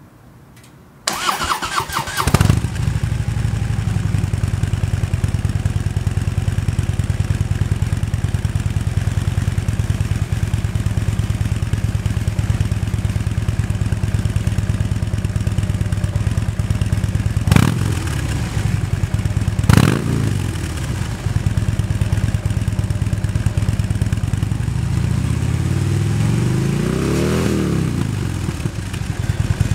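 2014 Harley-Davidson Switchback's Twin Cam 103 V-twin through its stock exhaust: the starter cranks about a second in and the engine catches shortly after, then settles into a steady, lumpy idle. Two quick throttle blips come a little past the middle, and a slower rev climbs and falls back near the end.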